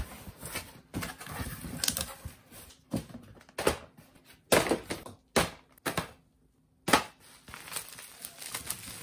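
Cardboard shipping box being unpacked: packing paper and plastic wrap crinkling, rustling and tearing in a series of sharp crackles, with a short quiet gap about six seconds in.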